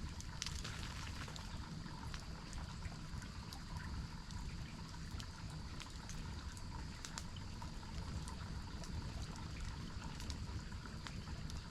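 Steady rush of a waterfall, with a campfire crackling over it in scattered sharp pops and ticks.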